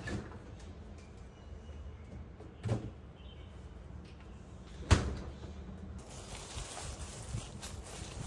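Quiet room background with two short knocks, a soft one nearly three seconds in and a sharper, louder one about five seconds in.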